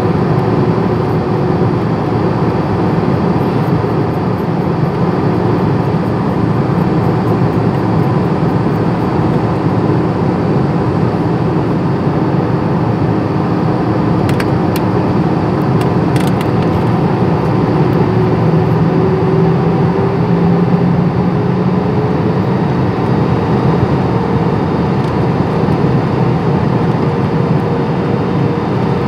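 Steady cabin noise inside an airliner on approach: engine and airflow noise with a low hum in it. One tone climbs a little in pitch about two-thirds of the way through, and there are a few faint clicks about halfway.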